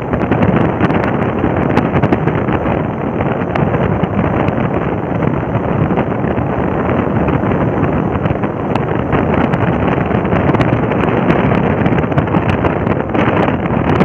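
Steady wind rushing over the microphone of a motorcycle cruising at about 55–60 km/h, with the bike's engine and road noise blended in.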